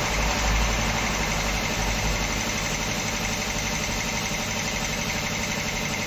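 A motor running steadily, an even mechanical hum like an engine idling.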